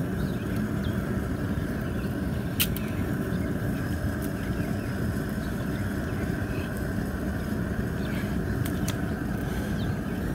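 Steady roar of a propane jet cooker burner running under the boil pot. A few sharp clicks cut through it, one about two and a half seconds in and a couple near the end.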